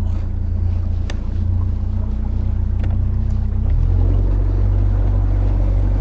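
Fishing boat's outboard motor running as the boat travels across the water, with wind and water rushing past. About two-thirds of the way through, the engine note changes and grows a little louder.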